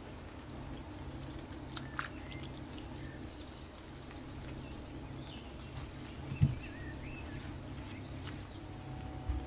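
Cream and ground spices poured into a frying pan of tortellini and vegetables, then a spatula starting to stir, with one sharp knock about six and a half seconds in. A steady low hum runs underneath.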